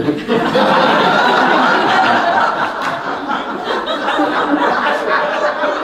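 Several people laughing together, a man's laughter among them, going on for several seconds.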